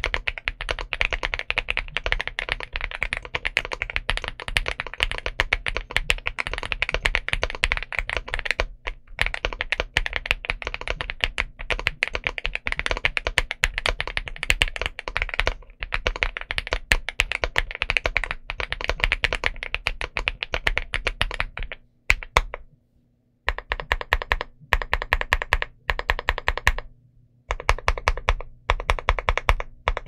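Stock Leobog Hi75 mechanical keyboard with Nimbus linear switches and double-shot PBT MDA-profile keycaps, typed on rapidly and without pause. About two-thirds of the way through, the typing breaks into short bursts of keystrokes with brief silent gaps between them.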